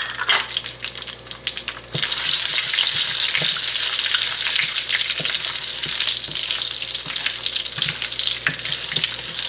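Curry leaves, fenugreek seeds and dried red chillies crackling in hot oil with cumin seeds in a non-stick wok, as whole spices are tempered for a curry. The sizzle grows suddenly louder about two seconds in and stays steady. A wooden spatula stirring through it knocks lightly on the pan now and then.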